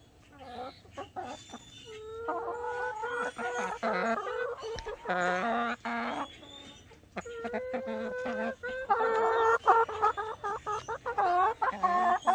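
Backyard hens clucking and giving long, drawn-out calls, in two runs with a brief lull midway.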